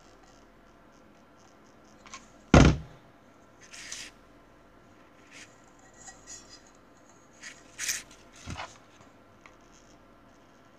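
Handling noises on a work surface: a loud thunk about two and a half seconds in, then a short rustle, scattered sharp clicks and another thunk.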